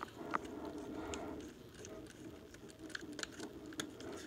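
Light, scattered clicks and taps from handling a screwdriver fitted with a Torx bit and small parts, over a steady low hum.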